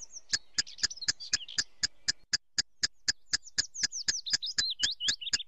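Added chirping sound effect: a steady run of sharp chirps, about four a second, with twittering bird-like chirps that slide in pitch mixed in over the first second and a half and again near the end.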